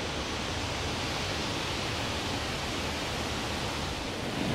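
Steady, even rushing noise with no tone or rhythm in it.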